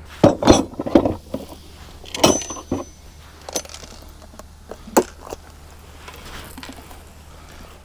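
Tools being handled at an open plastic tool case: a scattered series of metal clinks and knocks as a core drill bit and its adapter are taken out and fitted together. One clink rings briefly about two seconds in, and the sharpest knock comes about five seconds in.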